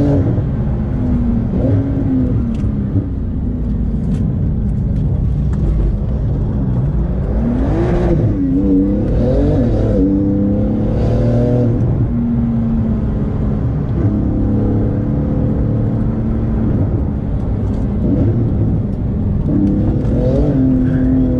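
Porsche 911 GT2 RS twin-turbo flat-six engine under way, heard from inside the cabin. The engine note holds steady for long stretches, and its pitch falls and climbs several times between about seven and ten seconds in as the revs change.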